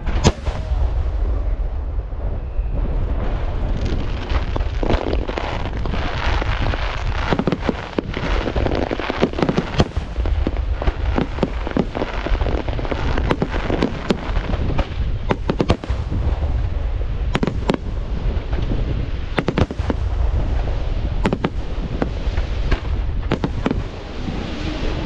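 Aerial fireworks display: a rapid, continuous string of shell bursts and bangs over a steady low rumble, with one especially sharp bang right at the start.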